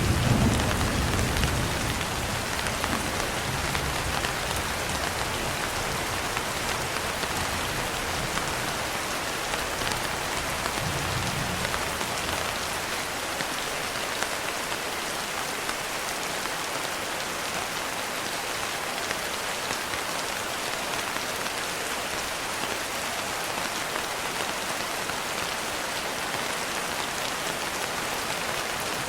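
Steady rain falling, with a low rumble of thunder in the first couple of seconds and a shorter one about eleven seconds in.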